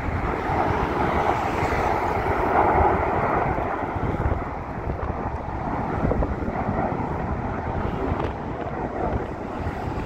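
Jet engines of a formation of low-flying jets passing by, a continuous rushing noise that is loudest about two to three seconds in, with wind buffeting the microphone.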